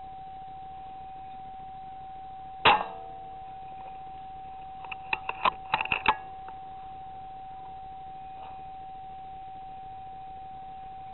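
A single rifle shot, sharp and loud with a short ring, about three seconds in. About two seconds later comes a quick run of metallic clicks, typical of the rifle being cycled to chamber the next round. A steady high electronic tone runs underneath throughout.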